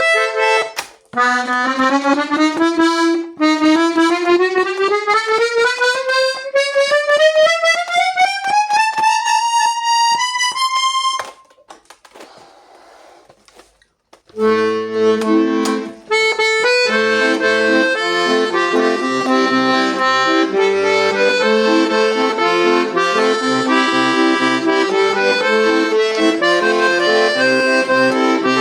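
Delica Amoretta accordion being test-played. It runs a long rising scale up the treble keys, pauses for a few seconds with faint key clicks, then plays a tune in sustained chords over a pulsing bass accompaniment.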